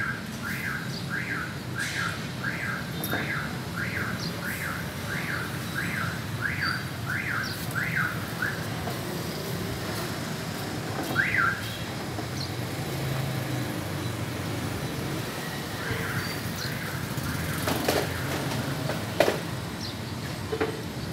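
A string of short high chirps, each rising and falling in pitch, about one and a half a second, that stops about eight seconds in, with one more a few seconds later. A steady low hum runs under them.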